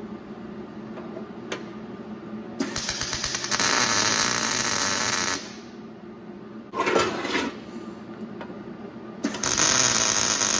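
MIG welder tack-welding the steel bottom plate onto a shortened Subaru oil pan: the arc crackles in three bursts, a long one of about three seconds, a short one about seven seconds in, and another near the end.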